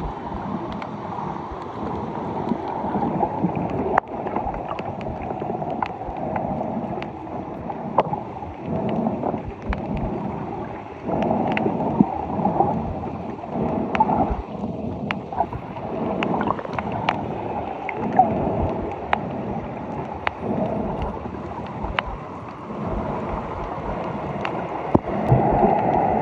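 Sea water sloshing and gurgling around the camera, a dull, uneven rush with scattered small clicks.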